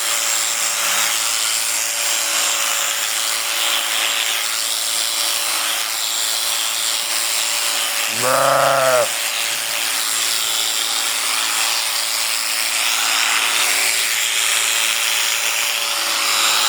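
Electric sheep shears running with a steady hum, and a sheep bleats once, briefly, about halfway through.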